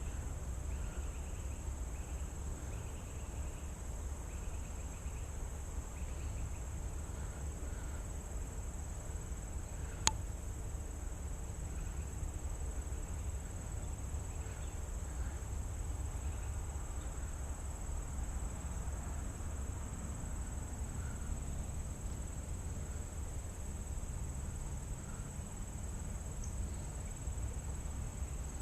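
Insects calling in a steady high-pitched drone, over a low rumble, with one sharp click about ten seconds in.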